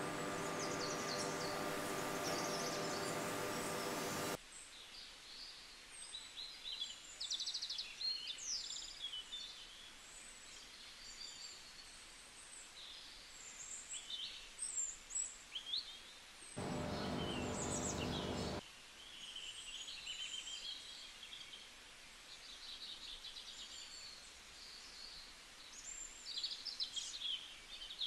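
Faint birdsong: scattered high chirps and short trills from small birds. A steady hum with hiss sits under it for the first four seconds or so and again for about two seconds in the middle.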